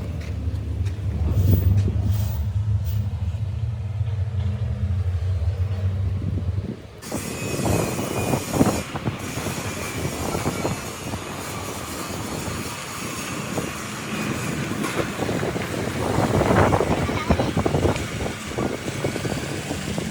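Heavy machine engine running steadily, then an abrupt change about seven seconds in to a noisier mechanical clatter with scattered knocks.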